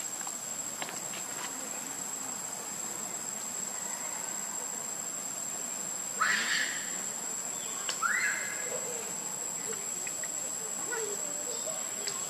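Steady high-pitched insect drone, with two short macaque squeals about six and eight seconds in, the second rising in pitch.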